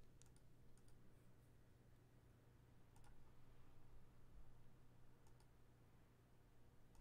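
Near silence: quiet room tone with a steady low hum and a few faint, scattered clicks.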